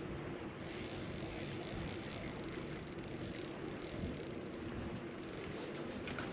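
Wind on the microphone and small waves lapping against an aluminium fishing boat's hull, with a faint steady hum underneath.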